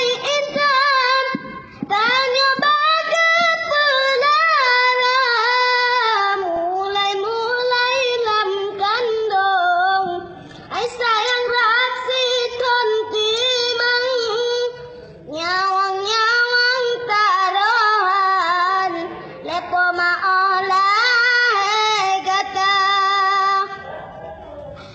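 A child singing alone without accompaniment, in a high voice. The song comes in several long melodic phrases with short pauses for breath between them.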